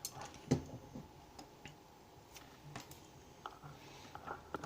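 Light, irregular clicks and taps of small metal lock pins and parts being handled and set down on a work surface, with one sharper tap about half a second in. The lock is a gutted Mul-T-Lock dimple lock whose driver and key pins are being laid out.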